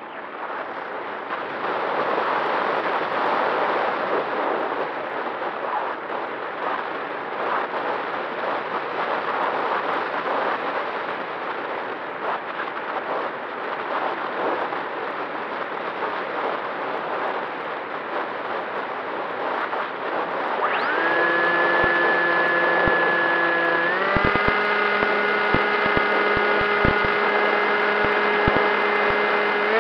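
Air rushing past a Bixler RC foam plane in flight. About two-thirds of the way in, its electric motor and propeller come in with a steady whine, which steps up in pitch a few seconds later as the throttle is opened further.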